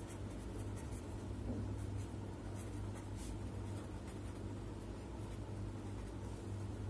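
Felt-tip pen writing on paper: faint scratching strokes over a steady low hum.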